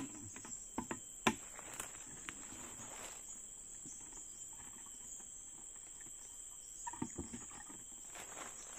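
Steady high-pitched drone of forest insects, with scattered knocks and clicks: a sharper knock a little over a second in and a short cluster around seven seconds in.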